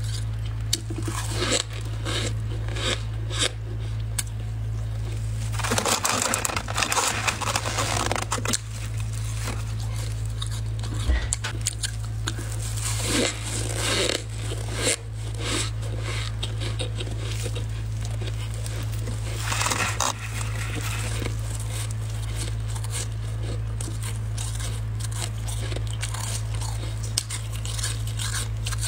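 Close-miked biting and chewing of crunchy freezer frost: crisp crackling crunches, coming in dense spells about six, thirteen and twenty seconds in, with soft rustles of a plastic glove squeezing packed frost between them. A steady low hum runs underneath.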